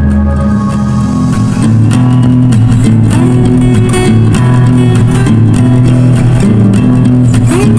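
Instrumental background music led by guitars over a steady bass line.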